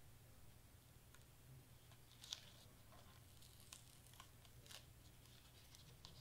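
Near silence: a few faint clicks and rustles of cardstock being handled, the sharpest about two seconds in, over a low steady hum.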